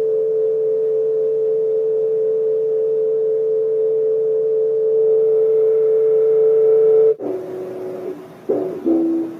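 Electric piano holding one steady, nearly pure note for about seven seconds. It cuts off sharply, then a few short notes follow, stepping down in pitch.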